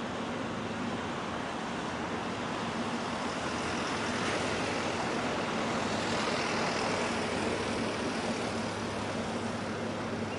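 Sea waves washing in, with wind noise and a steady low engine hum underneath; the wash swells a little around the middle.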